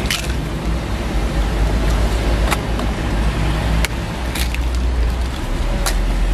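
Eggs tapped and cracked one after another on the rim of a metal egg-bread griddle mold, a handful of sharp clicks a second or more apart. Behind them runs a steady din of street traffic with a deep rumble.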